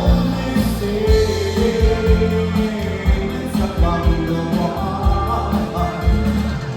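Live band music with singing over a steady beat, played through a sound check.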